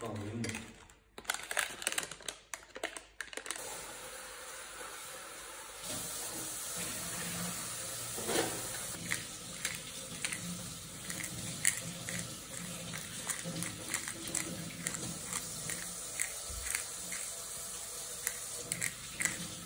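A metal spoon tapping and scraping in a glass dish as flour and spices are stirred together, with a spice jar shaken over it. A steady rushing noise comes in about six seconds in and runs under the taps.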